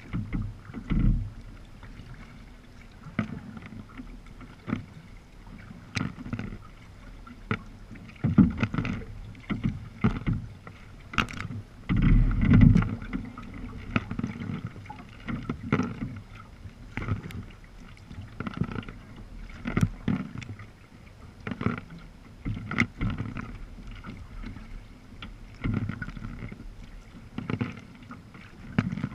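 Sea kayak being paddled: irregular paddle strokes, about one a second, splashing and knocking in the water, with water sloshing against the hull.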